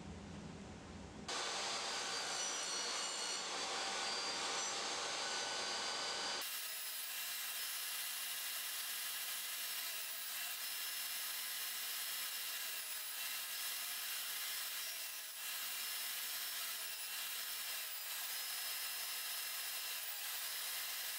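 Table saw running with a quarter-inch blade, cutting cross grooves into a mahogany workpiece pushed through on a crosscut sled; a steady whine with several high tones that starts about a second in and turns thinner about six seconds in.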